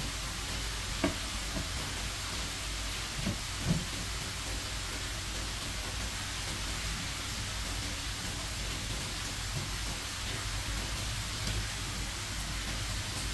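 A steady hiss, with a few light knocks in the first four seconds.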